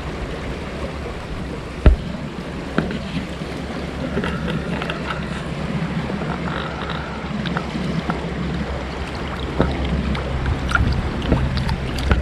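Wind buffeting the microphone over water noise, with scattered small clicks and a single sharp knock about two seconds in.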